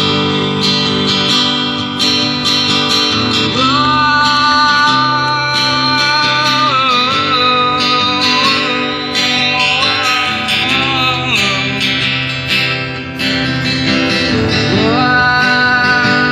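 Acoustic guitar strummed and picked through a loudspeaker, with a long-held melody line gliding between notes over the chords.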